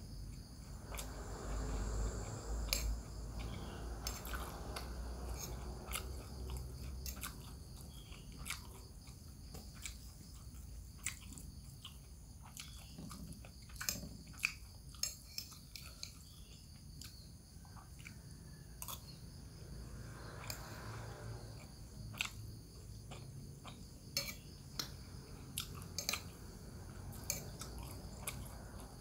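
Close-up chewing and biting of a mouthful of rice and bamboo-shoot vegetable, with scattered sharp clicks of a metal spoon and fork against a glass bowl.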